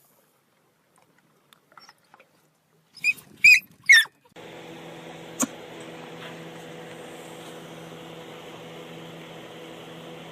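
Three short, loud, high-pitched squeaks, each bending in pitch, come about three to four seconds in. From just after that, a steady hum with a low drone sets in and runs on.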